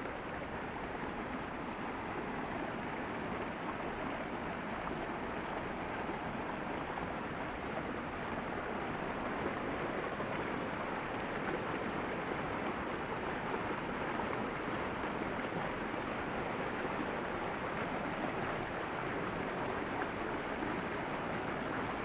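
Mountain stream rushing over rocks in a steady roar, growing a little louder and brighter about halfway through.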